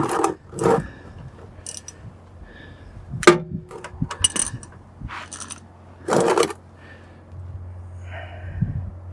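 Scattered metallic clinks and taps of a ratchet, socket and extension being handled, with one clink about three seconds in that rings briefly.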